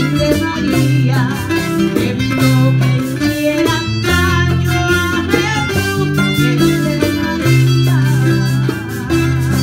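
Live acoustic music: a guitar-like plucked string instrument playing steadily, with a woman singing over it.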